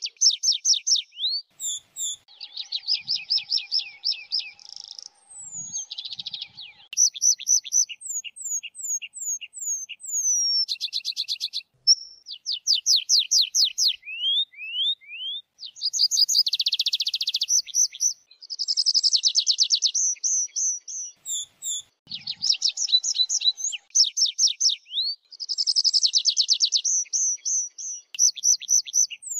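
Tree pipit singing: a series of phrases, each a quick run of repeated notes or a trill, some made of high notes that slide downward, with short pauses between phrases.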